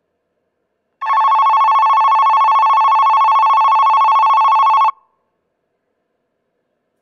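Japanese station electronic departure bell (denshi denrei) ringing through the platform's horn loudspeakers as a rapid, steady bell trill for about four seconds, starting about a second in and cutting off abruptly. It signals that the train is about to depart.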